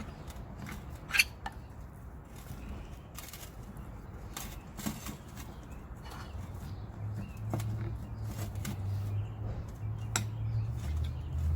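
A spoon stirring a thick cornstarch, jello and water mixture in a mixing bowl, clinking and knocking against the bowl, with one sharper knock about a second in. A low hum comes in about seven seconds in.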